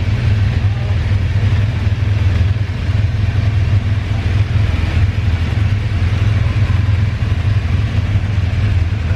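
Dune buggy's engine running steadily at rest, a continuous low engine sound, with the engines of nearby ATVs.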